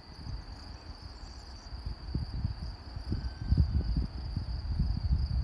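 Steady high-pitched chirring of insects. Wind buffets the microphone in low rumbling gusts that grow stronger in the second half and drown the chirring.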